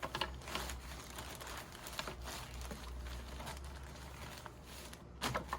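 Rustling and small irregular clicks and knocks of things being handled while someone rummages for a paintbrush, with a louder clatter about five seconds in.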